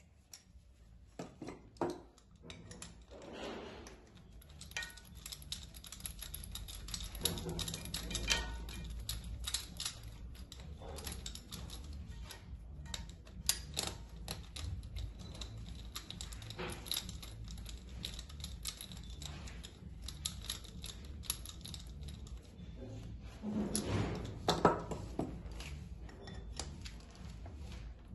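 Irregular metallic clicks and taps of a compression-tester hose and its threaded adapter being handled on a bare diesel engine's cylinder head, unscrewed from one glow-plug hole and fitted into the next, with a few short scrapes.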